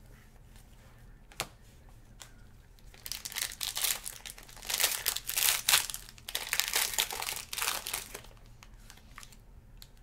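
Silver foil trading-card pack wrapper being torn open and crinkled by gloved hands, a run of loud crinkling from about three seconds in to about eight seconds. A single sharp click comes a little before it.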